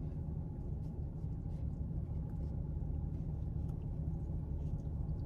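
Steady low hum inside a car cabin, with a few faint small clicks.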